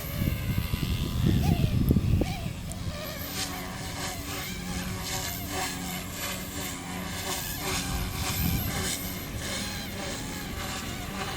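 A machine running with a steady hum; this is the noise the Logo 200 is making. It is louder and rougher for the first two seconds, then settles.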